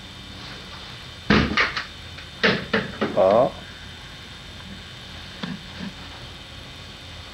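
A few short, sharp hissy sounds and then a brief pitched vocal call, over the steady hiss of old videotape.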